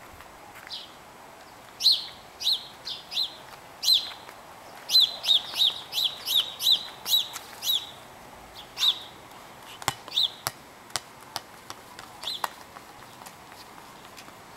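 A bird chirping repeatedly with short, high, falling chirps, first singly, then in a quick run of about eight in the middle, then spaced out again. A few faint sharp clicks come in the second half.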